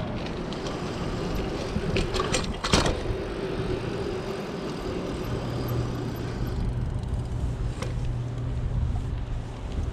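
Mountain bike being ridden along a trail: steady rolling noise from the tyres and bike, with a few sharp knocks and rattles about two to three seconds in.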